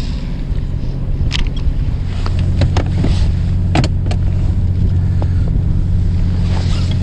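Fishing boat's engine running steadily as a low hum, growing louder about two seconds in, with a few sharp knocks and clicks over it.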